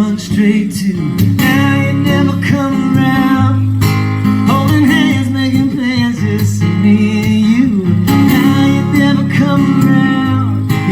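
Live acoustic song: a male singer strumming an acoustic guitar and singing.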